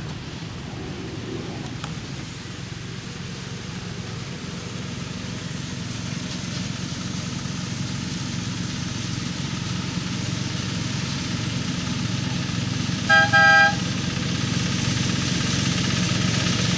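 Miniature railway diesel locomotive approaching with its passenger train, its engine running steadily and growing louder as it nears. About 13 seconds in it sounds its horn twice: a short toot followed straight away by a slightly longer one.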